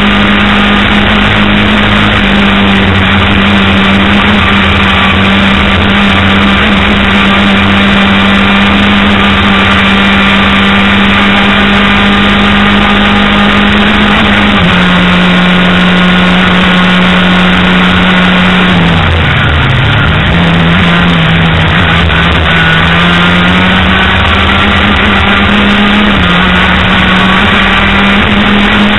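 Racing go-kart engine running hard at high, nearly steady revs, heard close up from the kart itself over a steady rush of noise. About halfway through the revs step down slightly, then a few seconds later drop sharply as the kart slows for a corner and climb back up as it accelerates out.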